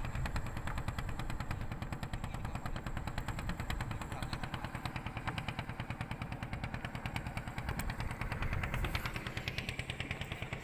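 Small boat engine running at a steady speed, a rapid and even putt-putt of exhaust pulses.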